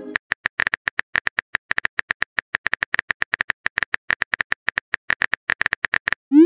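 Rapid typing clicks from a texting-app keyboard sound effect, about ten keystrokes a second, as a message is typed out. Right at the end a short rising whoosh begins, the app's message-sent sound.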